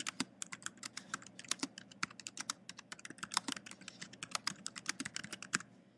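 Typing on a computer keyboard: a quick, uneven run of keystrokes, several a second, stopping shortly before the end.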